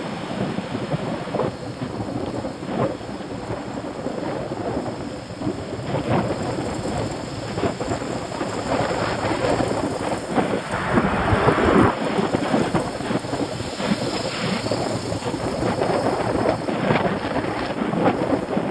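Wind buffeting the microphone of a camera on a moving bicycle: a continuous rough rumble, heaviest from about nine to twelve seconds in.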